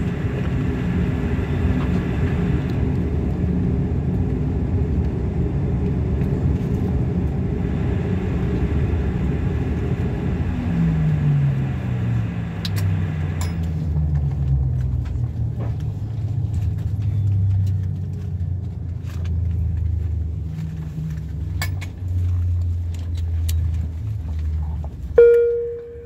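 Bombardier Q400 turboprop engines heard from inside the cabin, running steadily, then spooling down with a falling pitch about ten seconds in, the sign of engine shutdown after taxiing in, leaving a lower steady drone. A single loud chime sounds near the end.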